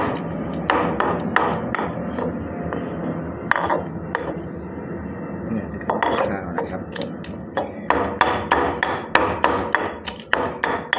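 A pestle pounding grilled long eggplant in a mortar, sharp knocks about three a second, with a lull of a few seconds partway through. This is the mashing of Isan-style eggplant soup (sup makhuea).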